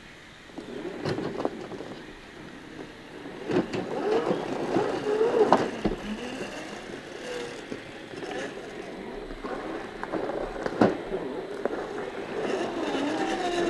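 Electric motors and geared drivetrains of 1/10-scale RC crawler trucks whining, the pitch rising and falling with the throttle as they crawl over rock, with a few sharp knocks as the trucks bump against the stone.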